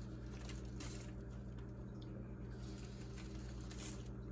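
Faint, soft rustling and scraping as dirt and debris are pulled out from inside a vacuum cleaner by hand, over a steady low electrical hum.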